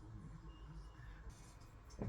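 Near silence: faint low room hum, with no distinct handling sounds.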